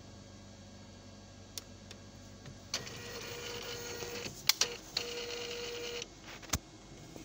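Epson T60 inkjet printer's print-head carriage motor running for about three seconds with a steady whine, broken midway by a couple of sharp clicks, then a single loud clack about a second after it stops. The printer is moving its print head after the ink button is pressed.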